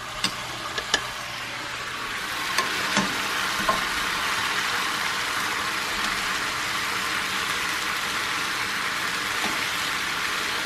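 Chunks of beef brisket searing in hot oil in a frying pan: a steady sizzle that grows louder about two seconds in, with a few light clicks of metal tongs turning the meat. It cuts off suddenly near the end.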